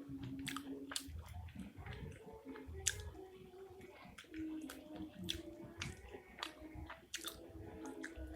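Close-up mouth sounds of someone biting and chewing spicy meatballs (pentol mercon): wet, squishy chewing broken by many short sharp clicks and smacks.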